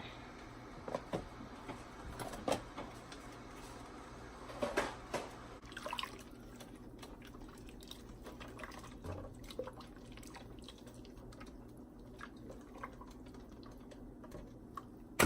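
Quiet kitchen sounds: a pot of liquid with faint dripping and sloshing, and scattered light clicks and taps of utensils and cookware, the strongest about two and a half and five seconds in, over a low steady hum.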